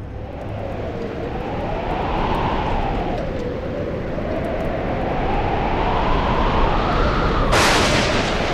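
Howling wind: a whistling tone that slowly rises and falls over a steady rushing hiss, with a sudden louder rush near the end.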